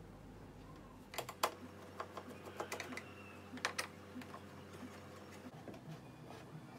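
Faint, sharp clicks and light taps, several in quick succession, as a screwdriver works at the screws of an LCD TV's plastic back cover.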